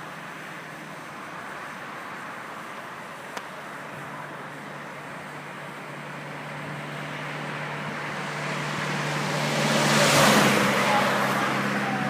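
Road traffic: a steady noise of cars, with a low engine hum from about four seconds in, and one vehicle passing close, loudest about ten seconds in.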